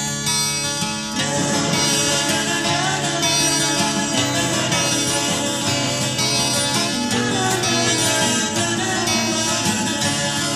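Early-1980s heavy metal band playing a studio demo recording, led by electric guitars with bass and drums. The band sound gets fuller about a second in.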